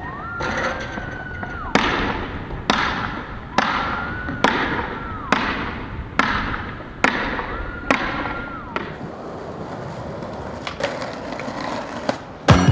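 Skateboard rolling on pavement with a sharp clack about once a second, nine times in a row, each followed by fading wheel noise. A high steady tone comes and goes three times.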